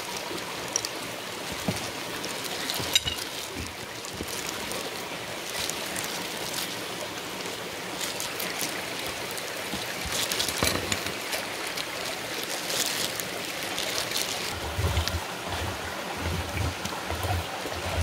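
Mountain valley stream flowing with a steady, even rush of water, with scattered light clicks and taps over it and a few soft low thumps near the end.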